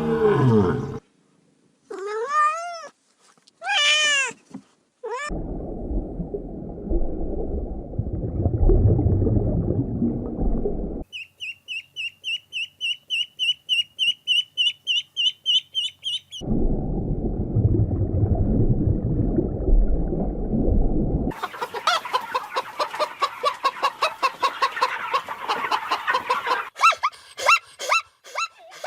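A run of different animal calls, one after another: two arching, drawn-out calls, a long low rough sound, a fast train of high chirps, more low rough sound, then a rapid pulsing call and short pitched calls near the end.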